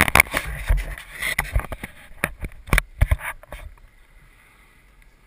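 Handling noise from a small camera being moved and set in place: a run of knocks and bumps with rumbling on the microphone, stopping about four seconds in, after which only a faint steady background remains.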